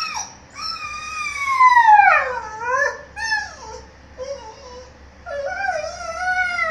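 Puppy whining and howling: a long cry sliding down in pitch, a few short whimpers, then a steadier wavering whine near the end. It is begging to be let out of a shut room.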